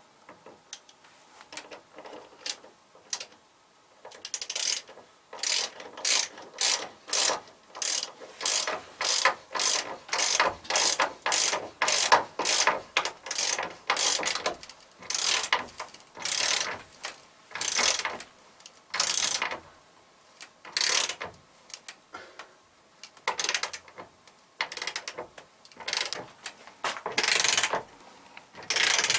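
Hand saw cutting through wood in steady back-and-forth strokes, about two a second; the first few strokes are light, then they get loud and regular about four seconds in, with a short pause partway through.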